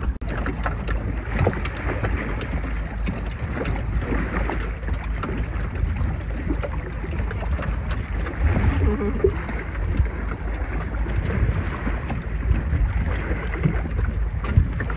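Wind noise on the microphone over water splashing and rushing along the hull of a small two-person sailing dinghy under way.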